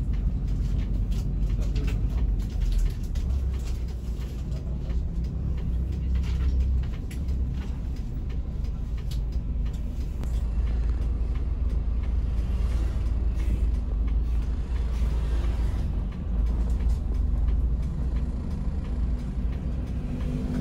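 Cabin sound of a Hino RM 280 coach's rear-mounted diesel engine pulling away at low speed: a steady low rumble with road noise and occasional small rattles from the interior.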